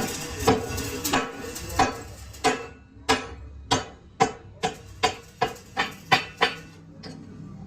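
Hammer striking metal: a run of about fifteen ringing blows, about two a second and quickening toward the end, which stop about six and a half seconds in.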